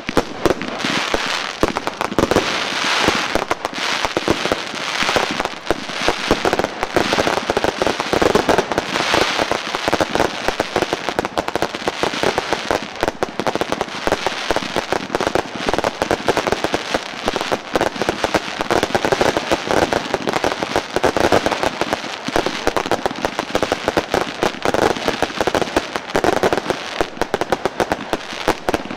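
Fireworks going off in rapid succession: shots launching from the ground and bursting overhead in a dense, continuous crackle of bangs with no pauses.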